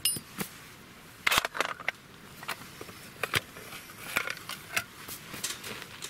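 Scattered light metallic clicks and taps from a flint-and-steel fire kit being handled: a C-shaped steel striker, a quartz stone and a tin box. The loudest cluster comes about a second and a half in.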